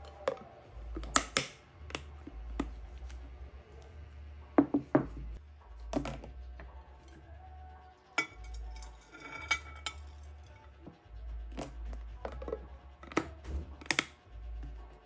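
Dishes and food containers being handled on a kitchen counter: scattered sharp clinks, clicks and knocks as leftovers are put away, with a brief ringing patch midway.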